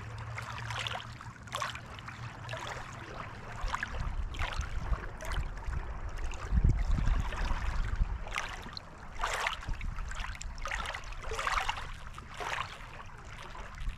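Small lake waves lapping and splashing against the shore in irregular wash after wash, about one a second, over a low rumble that swells about halfway through.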